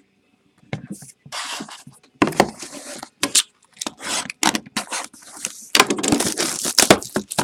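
Small cardboard trading-card boxes being handled on a table: a run of scratchy scrapes, slides and light knocks as the boxes are moved, with scraping at a box's sealed wrapping, busier near the end.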